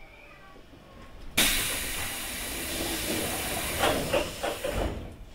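A sudden loud hiss of compressed air from the train car's pneumatic equipment starts about a second and a half in and lasts about three and a half seconds. Several knocks come near its end.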